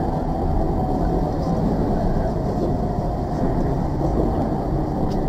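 Steady rumble inside a moving tram, the running noise of its motors and wheels on the rails.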